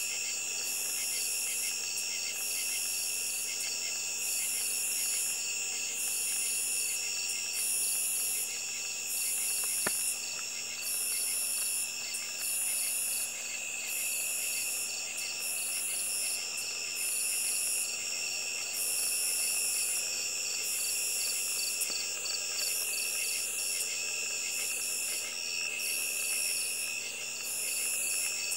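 Night chorus of insects: several steady, high-pitched trills layered together, with one higher call pulsing about once a second. A single click about ten seconds in.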